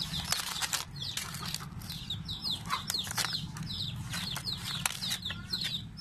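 Dry fern leaves rustling and crackling as scissors cut them away, in scattered bursts. Birds chirp over it again and again in short, falling calls.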